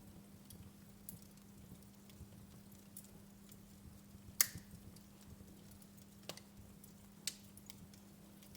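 Logs burning in a fireplace, crackling with scattered sharp pops. The loudest pop comes about four and a half seconds in, and two more stand out near six and seven seconds.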